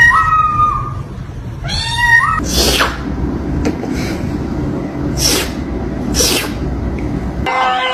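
Cat meowing twice, each a short call that rises slightly in pitch, then four short hissing bursts about a second apart.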